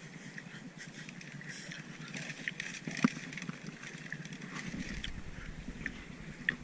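Light clicks and rustles of hands working on a small boat, one sharper click about three seconds in, over a soft hiss of sea and breeze. A low rumble comes in about two-thirds of the way through.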